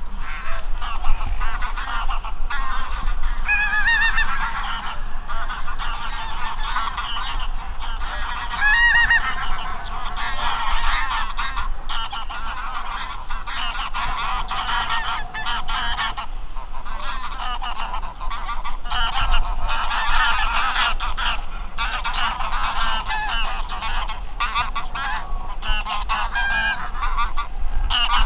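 A flock of wild geese honking, many calls overlapping without a break.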